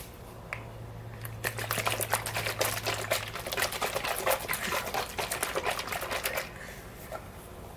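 An open container of broth being shaken hard, the liquid sloshing inside in rapid jolts for about five seconds, starting about a second and a half in. A low steady hum sits under the first half.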